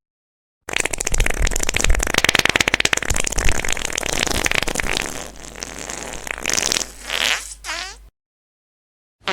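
A long sputtering fart: a rapid flutter lasting about four seconds, trailing off into a few shorter pitched puffs. Another fart starts right at the end.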